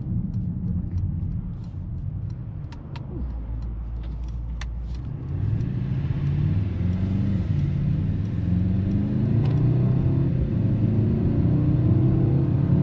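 Mercedes-AMG GLE 63 S's 4.0-litre twin-turbo V8 under way: running quietly at first with a few light clicks, then about five seconds in it accelerates hard, its note rising in pitch in several steps as it shifts up through the gears.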